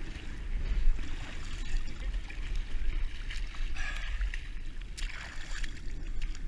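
Water sloshing and splashing as a person wades through a pond, a little louder about four and five seconds in, with a low wind rumble on the microphone.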